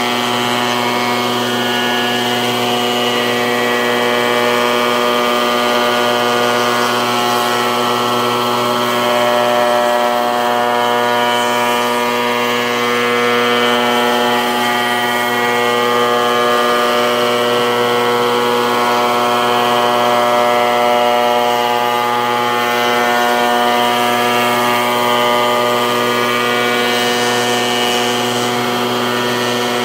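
Shop Fox spindle shaper running steadily while a curved round molding is fed by hand past its cutter: a constant machine hum and whine with a light cutting hiss.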